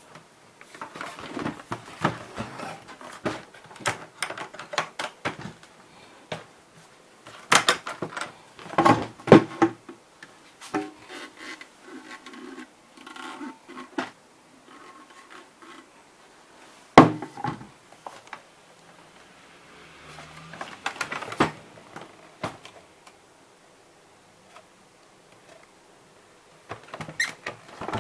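Irregular clicks, knocks and rattles of hard objects being handled, coming in bunches with one sharp knock about halfway through; no motor is running.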